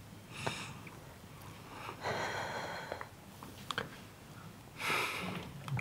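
A woman sniffling and breathing heavily as she cries: three short, faint breaths, about half a second in, around two seconds in and near the end.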